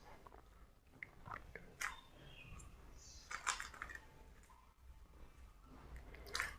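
3x3 Rubik's cube faces being turned by hand: faint, irregular plastic clicks and rattles in small clusters, from the moves that build the white cross.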